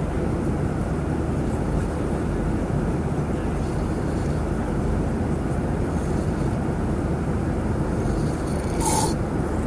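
Steady drone of an airliner cabin in flight: engine and air noise. A short, sharp sound comes about nine seconds in.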